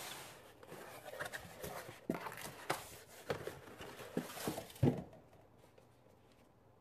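Cardboard shipping box being handled and opened: flaps rustling and scraping, with a run of irregular knocks. The loudest knock comes just before five seconds in, and the handling stops soon after.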